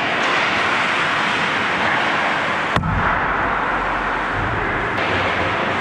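Ice hockey play on an indoor rink: a steady scraping hiss of skates on the ice, and about three seconds in one sharp crack followed by a short low rumble.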